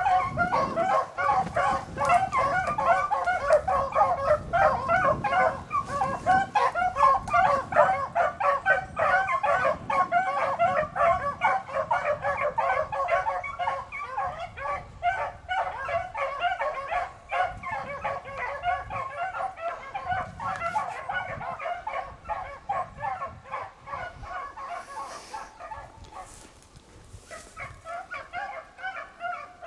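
A pack of beagles baying on a rabbit's track, many voices overlapping in constant cry. The chorus fades about 25 seconds in, then picks up again more faintly near the end.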